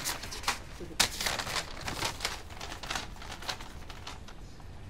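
A sheet of letter paper rustling and crinkling as it is unfolded and handled, a string of irregular crisp rustles, loudest about a second in and dying down near the end.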